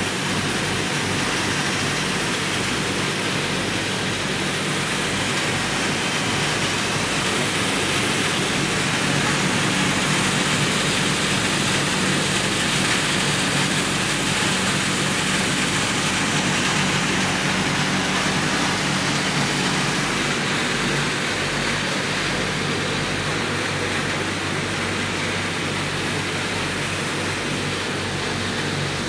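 Machinery of a running circuit-board recycling line: a continuous rushing noise of motors, fans and conveyors with a low steady hum underneath.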